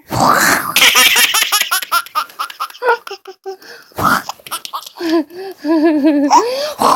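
A one-year-old baby laughing hard in a rapid run of short laugh pulses for a couple of seconds. After a brief pause about three seconds in, the laughter starts again.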